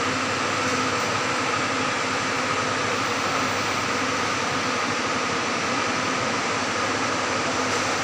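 Steady machinery drone with a few constant hum tones, unchanging throughout.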